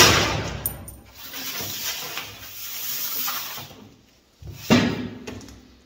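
Stainless-steel sheet being cut diagonally at a corner with metal shears: a rough, scraping cut that starts abruptly and runs for about four seconds, then a second shorter cut about four and a half seconds in.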